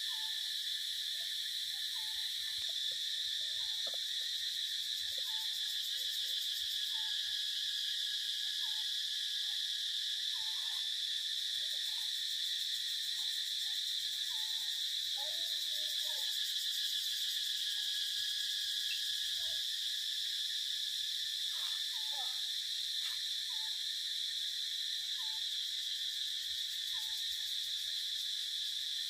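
Continuous high-pitched drone of a forest insect chorus, with short, scattered chirping calls over it about once or twice a second.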